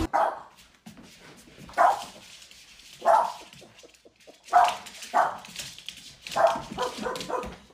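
A dog barking: about seven short barks, spaced a second or so apart.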